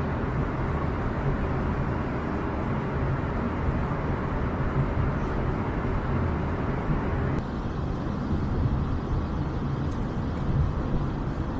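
Steady airliner cabin noise in flight: the even drone of the engines and the rush of air past the fuselage. About seven seconds in, the sound changes slightly and becomes a little duller.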